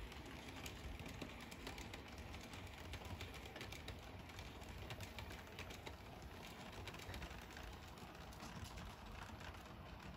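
HO scale model train running on the layout: a faint steady rumble of the locomotive and its metal wheels on the track, with many small rapid clicks.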